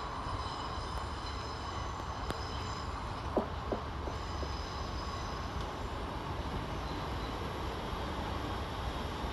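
Two coupled Class 387 electric multiple units running past on the rails and drawing away: a steady low rumble with faint high-pitched tones and a few short clicks.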